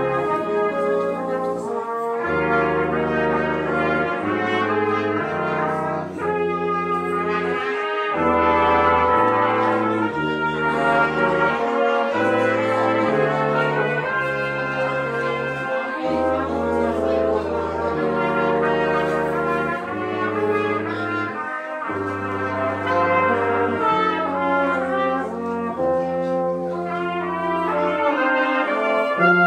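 Brass ensemble of trumpets, French horn, trombone and tuba playing a piece together: a tuba bass line steps from note to note every second or two under the trumpets' held melody.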